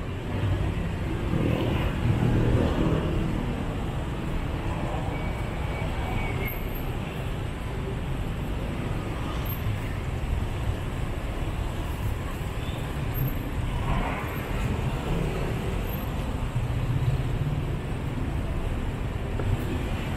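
Busy city-street ambience: road traffic running past with a steady low rumble of engines and tyres.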